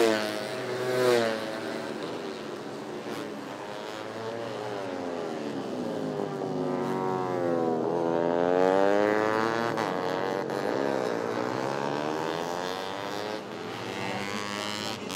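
Four-stroke 150 cc underbone racing motorcycles at full throttle, their high-revving engine notes rising and falling in pitch. Two loud passes come in the first second or so, and one long climb and drop in revs comes in the middle.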